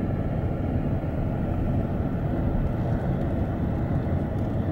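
Steady low rumble of a car driving, heard from inside the car.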